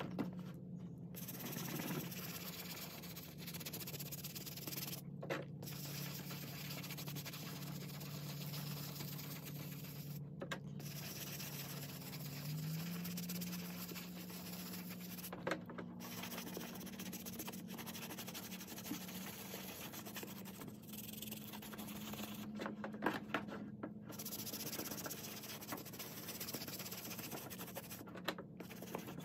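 Small bristle brush scrubbing wet, shampoo-lathered suede: a continuous scratchy brushing with a few brief breaks.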